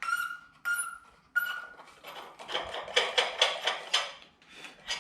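Metal tools clinking: four sharp strikes in the first two seconds, each ringing on at the same pitch, then a run of quick metallic clicks and rattles.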